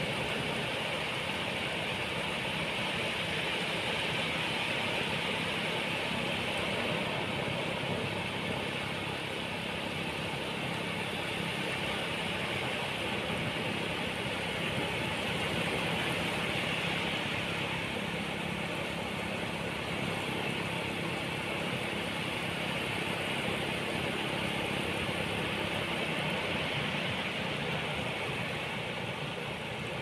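Ocean waves washing onto a beach: a continuous surf noise that swells and eases slowly every several seconds.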